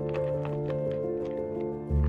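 Background music of held, sustained tones over a bass line, with a deeper bass note swelling in near the end; light irregular clicks sound over it.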